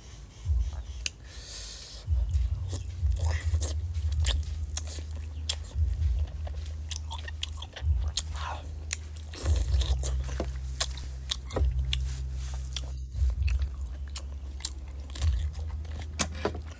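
Close-miked chewing and biting of boiled chicken, with many sharp crunching clicks and wet mouth sounds over a low, pulsing thud of the jaw working.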